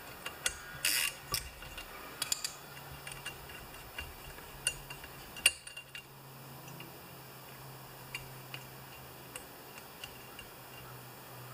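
Small metal clicks and clinks as fingers fit the starter dogs and a brass post on a chainsaw's flywheel, scattered through the first half, with a sharper click about five and a half seconds in. After that there are only occasional faint ticks over a low steady hum.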